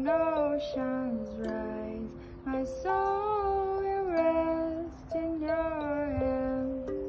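A high voice singing a melody, each note held for about half a second to a second and sliding into the next, over steadier plucked kalimba notes ringing underneath.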